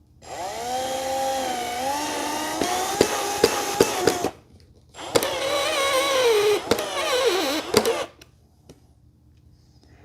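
Cordless power drill driving screws into the shelf panels in two runs of about four and three seconds, with a few sharp clicks late in the first run; in the second run the motor's whine sinks in pitch as the screw seats and tightens.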